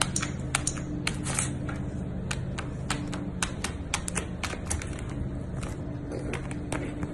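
Golden retriever puppy's claws clicking and tapping irregularly, a few times a second, as it paws at a tablet's glass screen and the hardwood floor, over a low steady hum.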